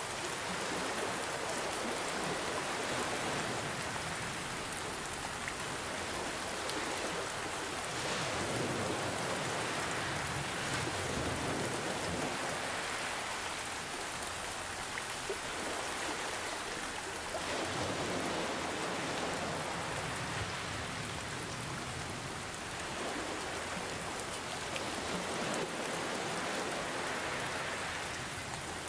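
Steady rain falling, with gentle ocean waves washing in underneath and swelling every several seconds.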